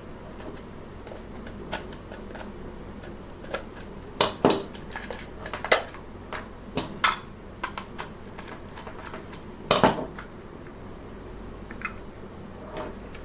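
Irregular clicks and knocks of small screws and hard plastic parts as the lid of a manual pull-cord vegetable chopper is unscrewed and taken apart. The loudest knocks come about four seconds in and again near ten seconds.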